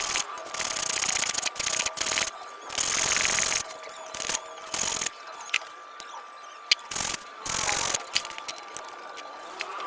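Metal mechanism parts being handled and worked by hand: irregular rubbing and ratcheting clicks in short bursts, with one sharp click about two-thirds of the way through.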